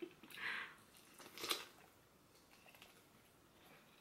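Faint sounds of eating boiled corn on the cob: a soft rustle about half a second in and one short crisp crunch about a second and a half in, then only faint small clicks.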